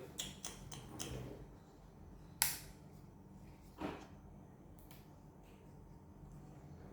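Scattered clicks and knocks of the drone's plastic parts and packaging being handled during unboxing: a few small ones in the first second, a sharp click about two and a half seconds in and a softer one more than a second later.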